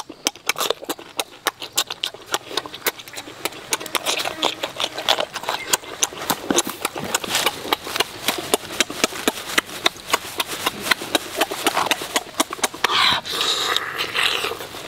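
Close-up chewing and mouth sounds of someone eating cooked squid: a quick, irregular run of wet smacks and clicks of lips and teeth, several a second, with a short hissing breath about thirteen seconds in.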